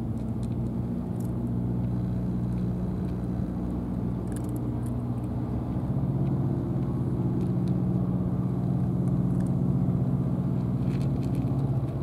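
A steady, low engine hum whose pitch shifts about halfway through. Over it are faint, scattered clicks from a cat crunching dry kibble.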